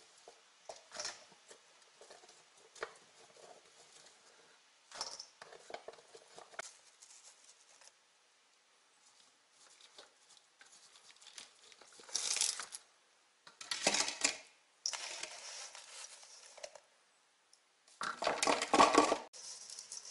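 Sugar-coated quince slices being scooped from a stainless steel bowl and packed into a glass jar by hand: irregular rustles and light clinks of fruit and sugar against metal and glass. Louder rustling bursts come in the second half, the loudest near the end.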